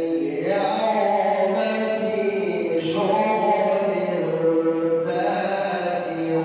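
A man reciting the Quran in the melodic tajwid style, drawing out long held, ornamented notes that move between pitches.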